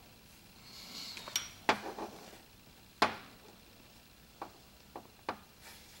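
Sharp metallic clicks and clinks as a Toyota Prius EGR valve is worked by hand, its spring-loaded valve and screw shaft pushed and turned to free a valve that is sticking, which the mechanic takes for carbon buildup. About seven clicks, the loudest about three seconds in.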